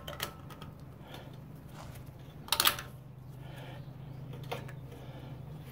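Scattered metal clicks and scrapes as a brake caliper's retaining spring is worked back into place, with one louder metallic clatter about two and a half seconds in.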